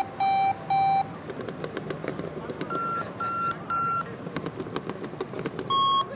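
Sonic Alert Sonic Bomb alarm clock sounding its alarm in groups of three short beeps, one group about every three seconds. Each group is at a different pitch as its adjustable tone is changed: first lower, then highest, then in between.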